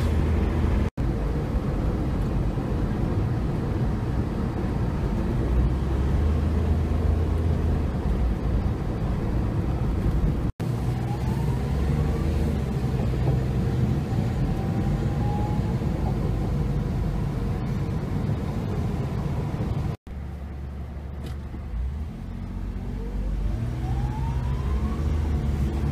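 Steady rumble of road and traffic noise heard from a moving car in city traffic. It breaks off for an instant three times where the clips are cut together. A rising whine sounds twice, once about eleven seconds in and again near the end.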